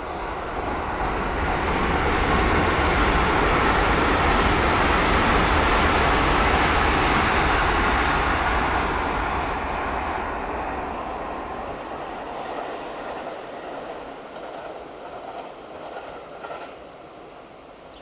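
JR West limited express electric train passing: a rumble of wheels on rail that builds over the first two seconds, stays loud for several seconds, then fades steadily as the train draws away.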